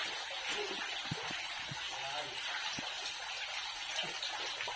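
Spring water running inside a cave, a steady rushing hiss, with a few soft low thumps near the middle.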